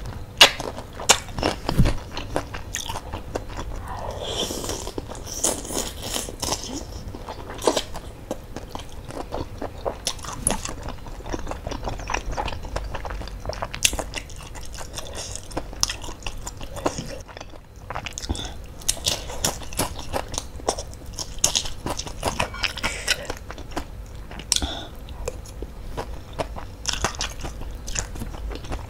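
Close-up eating sounds of spicy bakso soup: wet chewing and slurping, with scattered sharp clicks and short hissy slurps throughout.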